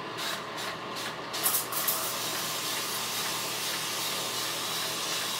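Hand-held spray bottle misting water onto hair: several quick squirts in the first two seconds, then a steady hiss.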